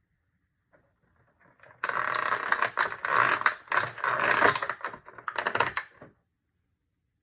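Packaging being handled: rapid crackling and clicking that starts about two seconds in, runs for about four seconds and stops.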